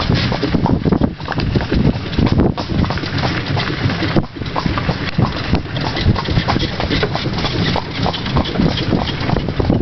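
A horse's hooves clip-clopping on a dirt track as it pulls a carriage, with the carriage and its wheels rattling over the rough ground.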